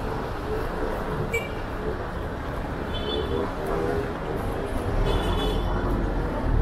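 City street ambience: steady traffic noise with faint voices. About five seconds in, a deeper rumble of a heavy vehicle engine, such as a city bus, comes up.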